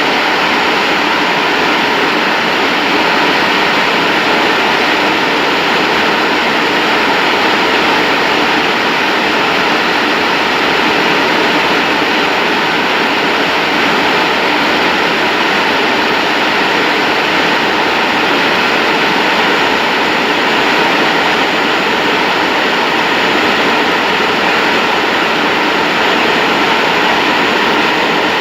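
A Boeing 737-800's CFM56 jet engine during a compressor wash: a loud, steady rushing noise with faint steady whining tones.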